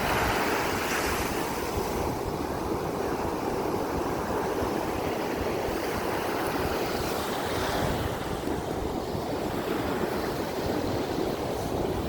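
Ocean surf washing onto the beach in a steady rush that swells and eases, with wind buffeting the microphone into a low rumble.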